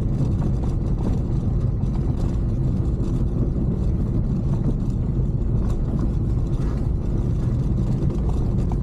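Steady low rumble of a motor vehicle's engine and tyres, heard from on board while it drives along.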